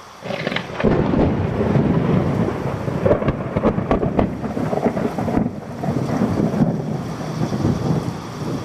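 Thunderstorm: thunder rumbling and rolling over steady heavy rain. The rumble swells within the first second and stays strong, with its loudest rolls around the middle, then eases a little toward the end while the rain keeps on.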